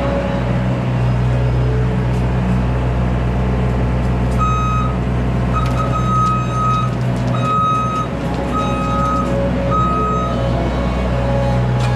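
A small skid steer's engine running steadily under load, with its backup alarm beeping about once a second through the middle of the stretch as the machine reverses.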